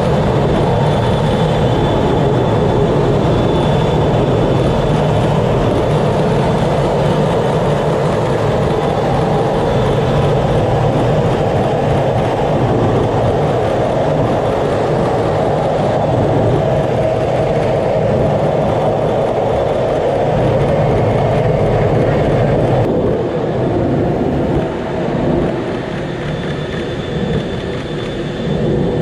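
Steady loud rush of jet engine and airflow heard from inside the cockpit of a Blue Angels F/A-18 in flight, with a faint high whine running through it. Late on, the noise eases a little and loses its hiss.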